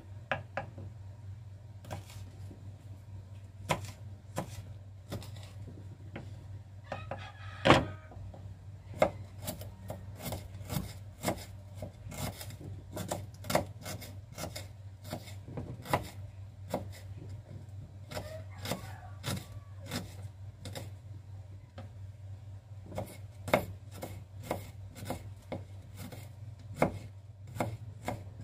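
Kitchen knife slicing red chillies, shallots and garlic on a wooden cutting board: irregular knocks of the blade on the board, one or two a second with short pauses, the loudest about 8 seconds in. A steady low hum runs underneath.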